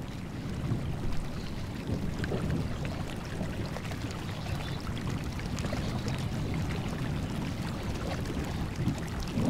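A shallow mountain stream running over rocks, a steady rushing of water.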